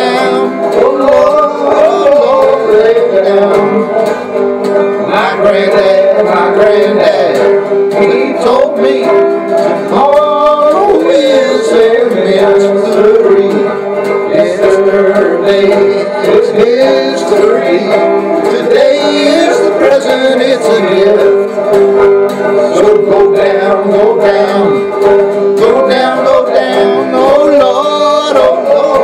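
Acoustic guitar playing with a man singing over it, his voice holding and sliding between notes without clear words.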